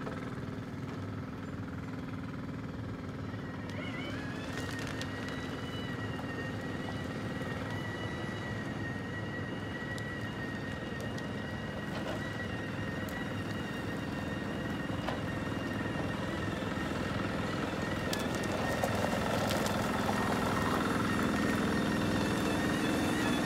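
Skyline logging machinery (yarder and motorized grapple carriage) running steadily under load as a log turn is yarded uphill. A steady high whine comes in with a short rise about four seconds in, over a low engine hum, and the sound grows gradually louder.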